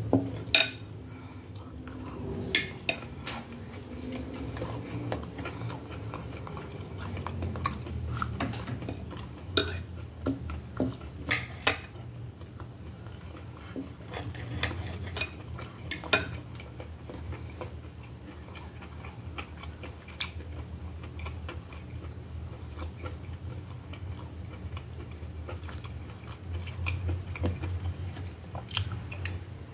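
Metal fork and knife clinking and scraping on a plate as food is cut, with a few sharp clinks scattered through, along with chewing.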